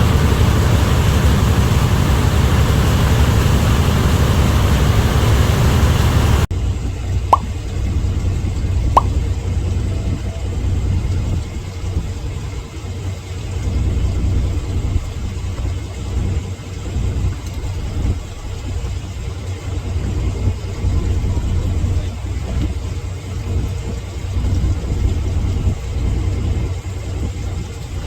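Engine running with a steady low rumble, under a loud wind-like hiss that cuts off abruptly about six seconds in. After the cut the rumble carries on alone, with two brief clicks shortly after.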